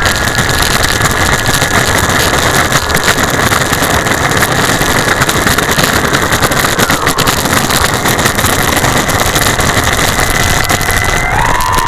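The 2200 kV brushless motor and propeller of a homemade foam flying wing whining at a steady pitch over a loud rushing noise as the wing moves along asphalt at ground level. The whine drops in pitch a little past halfway and climbs again near the end.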